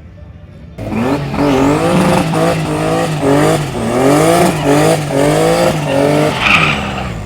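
Turbocharged BMW E36 straight-six doing a burnout: the engine revs hard, its pitch rising and falling repeatedly, over the hiss and squeal of spinning tyres. It starts suddenly about a second in and eases off near the end.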